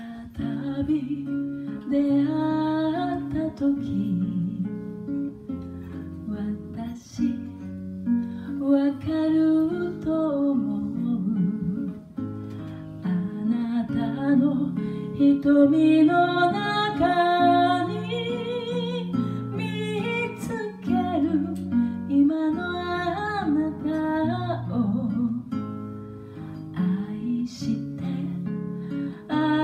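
A woman singing a slow song while playing chords on a nylon-string classical guitar, both amplified.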